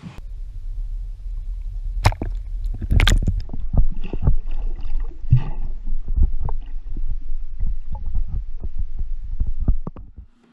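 Muffled sound of lake water heard through a camera held underwater: a steady low rumble with irregular knocks and splashes as released smallmouth bass swim off. The loudest knocks come about two and three seconds in, and the rumble cuts off shortly before the end.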